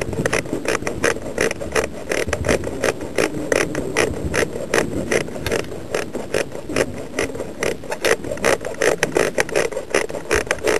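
A rapid, irregular series of sharp clicks and knocks, several a second, over a low rumble.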